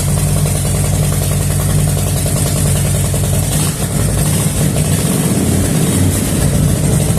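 Motorcycle engine running at a steady idle.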